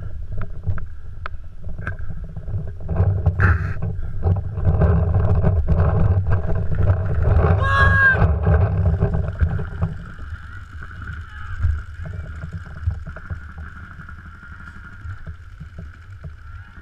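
Heavy rumble of wind and movement on a body-mounted camera's microphone as the player moves across a paintball field, with scattered sharp pops of paintball markers firing. A brief high call rings out about eight seconds in, and the rumble drops away after about ten seconds, leaving quieter field noise.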